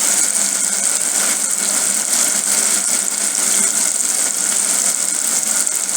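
Tomato and onion sauce sizzling steadily in a frying pan, with faint scattered clicks.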